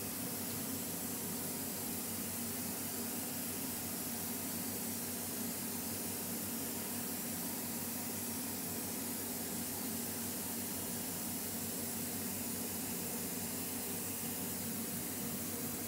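Steady workshop background noise: an even hiss, strongest in the high range, over a low steady hum, with no distinct events.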